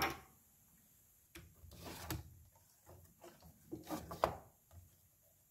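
Hands handling the parts of a tablesaw tenon jig: a scatter of small knocks, clicks and rubbing as a washer, a clamping lever knob and a clear plastic blade guard are fitted and adjusted. The knocks come between about one and five seconds in, the last ones sharpest.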